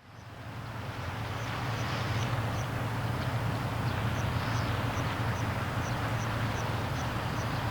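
A steady low hum under wind-like noise, fading in at the start, with a faint high chirp repeating about two or three times a second.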